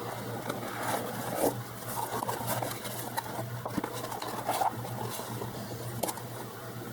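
Cardboard trading cards being handled and sorted by hand: irregular light scrapes, slides and taps, over a steady low hum.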